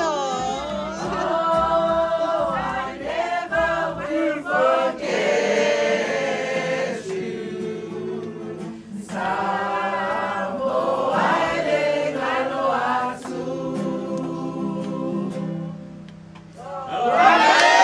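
A family group singing a Samoan song together in several voices, accompanied by a ukulele, with a louder burst of voices near the end.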